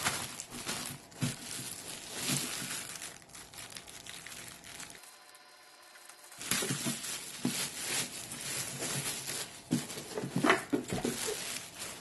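Thin clear plastic wrapping crinkling and rustling as it is pulled off a humidifier's water tank and base, with a brief lull about halfway through.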